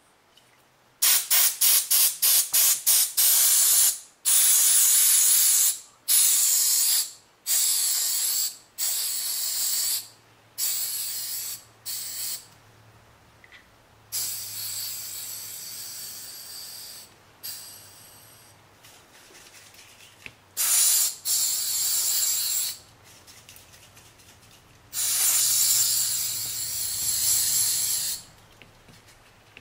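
Compressed air blown in repeated blasts over a circuit board to dry off rinsing alcohol. About a second in comes a quick run of short puffs, then longer hissing blasts of one to three seconds with brief pauses between.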